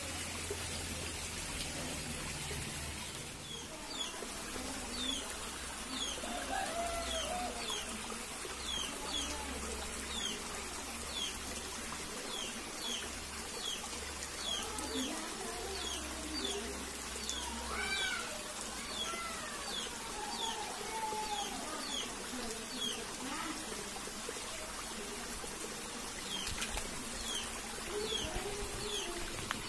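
Shallow stream water trickling over rocks, with a bird giving short high falling chirps over and over, a little more than one a second, and lower wavering calls now and then.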